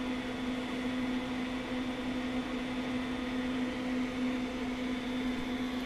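Steady low hum with a faint high-pitched whine over an even hiss: indoor room tone from running equipment.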